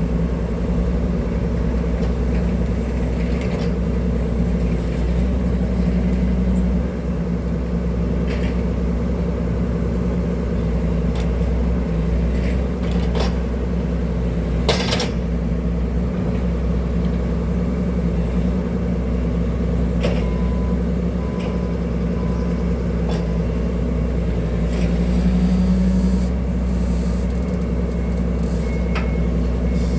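Hydraulic excavator's diesel engine running steadily under work, a deep constant rumble with one sharp click about halfway and a brief rise in engine load near the end. Faint intermittent beeping comes in during the last third.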